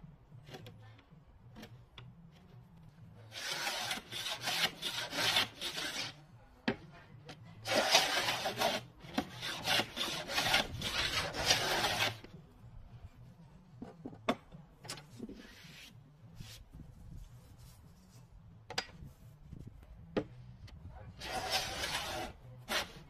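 Metal hand plane cutting across the end grain of a wide board in runs of quick rasping strokes. A run of strokes a few seconds in is followed by a longer one, then a short run near the end, with light clicks and knocks from handling between them.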